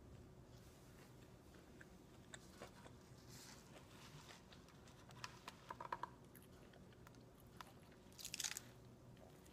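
Faint close-up chewing with soft mouth clicks, and a few louder clicks about halfway through. Near the end comes a short slurp through a drinking straw.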